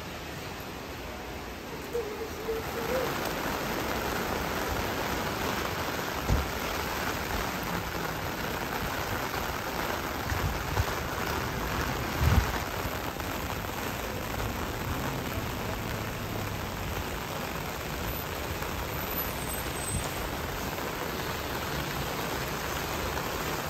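Steady rain falling on wet pavement and roofs, an even hiss, with a couple of brief low thumps.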